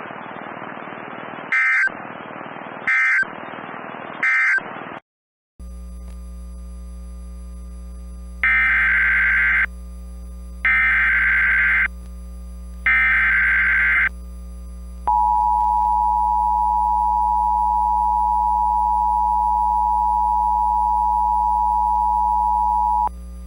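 Emergency Alert System tones: three short end-of-message data bursts screech over static. After a brief cut, a new alert's three longer SAME header data bursts screech over a mains hum, followed by the steady two-tone EAS attention signal held for about eight seconds.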